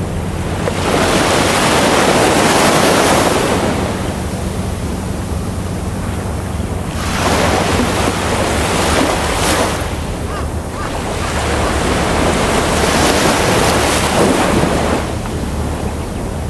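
Ocean waves breaking and washing up the shore, three surges of rushing surf swelling and falling back about every five seconds, over a steady low rumble.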